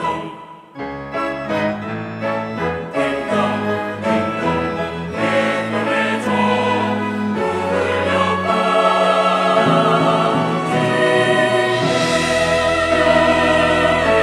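Church choir singing with instrumental accompaniment: short detached notes at first, then swelling into loud held chords from about halfway through.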